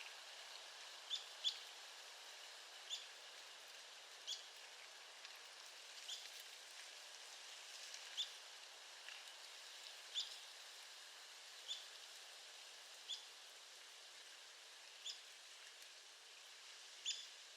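Arizona woodpecker giving single sharp call notes, one every one to two seconds, over a steady faint hiss.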